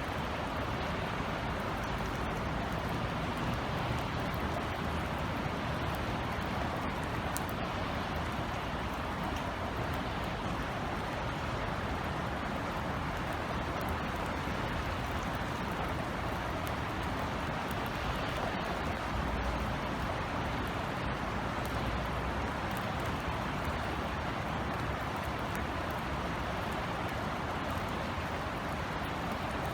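Steady rain falling in an even hiss, over a low steady rumble of distant city traffic.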